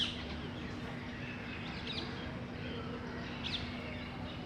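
A colony of bees in a hollow tree buzzing with a steady hum, while birds chirp briefly about two seconds in and again near three and a half seconds.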